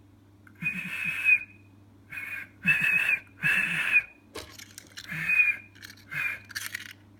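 A person whistling in a string of about seven short, breathy blasts, trying to set off a whistle-activated key finder keychain.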